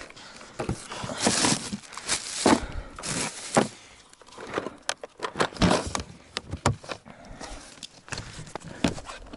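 Handling noises of unpacking gear: plastic bags rustling and the plastic ice-fishing box and its lid knocking and scraping against the plastic sled, in short irregular bursts.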